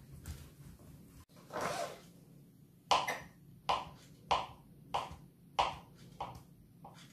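Kitchen knife chopping a rope of dough into small pieces for vareniki, the blade knocking sharply on the countertop about once every two-thirds of a second from about three seconds in. Before that, faint rubbing of hands rolling dough on the counter.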